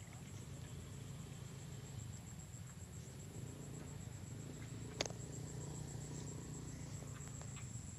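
An insect trilling high and steady in rapid, even pulses, with a single sharp click about five seconds in.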